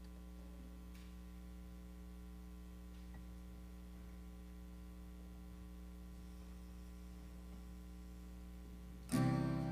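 Steady low electrical hum from the sound system during a held silence, with no other events. Near the end, instrumental prelude music starts.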